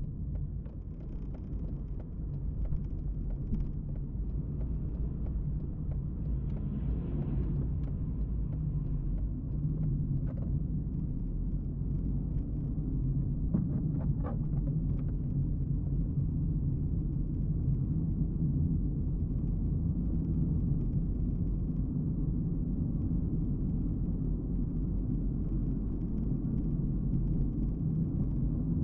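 Car driving on town streets: a steady low rumble of engine and tyre noise, with a few faint brief ticks around the middle.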